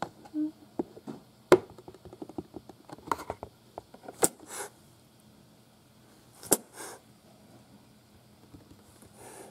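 Young kitten hissing defensively, a sign that it is scared: twice a sudden spit, about four and six and a half seconds in, each followed by a short hiss, and a fainter hiss near the end. A scatter of small clicks and taps, one of them loud, fills the first few seconds.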